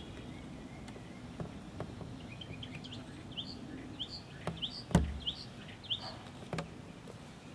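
A bird sings a run of short rising chirps, about two a second, for about three seconds. Light clicks and knocks from hands handling a riflescope while turning its magnification ring come through it, the loudest a thump about five seconds in.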